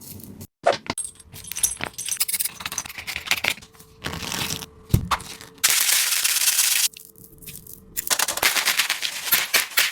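A taba squishy, a paper-and-tape squishy toy, being squeezed and handled: rapid crinkling and crackling of the tape and paper, with a steadier rustling hiss for about a second in the middle.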